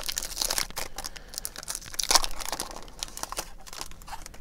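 Crinkling and tearing of a Topps baseball card pack wrapper as it is ripped open by hand, with a louder crackle about two seconds in.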